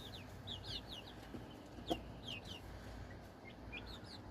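Chickens making short, high, falling chirps, several a second, as they feed on watermelon, with one sharp tap about two seconds in.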